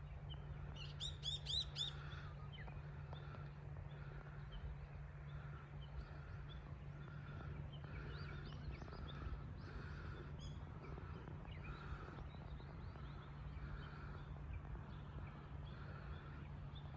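Small birds chirping and twittering, with a loud quick run of high chirps about a second in and softer scattered chirps and a repeating call after it. A steady low background rumble sits underneath.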